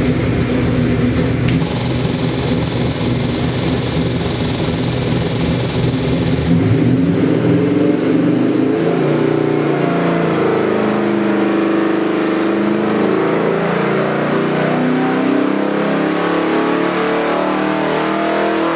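Chevrolet 454 big-block V8 with Holley multi-port fuel injection running on an engine dyno: it runs at low revs at first, then about seven seconds in it is pulled under load with the revs climbing steadily toward about 4,700 rpm. A steady high hiss sits over the engine from about two seconds in to about six and a half seconds.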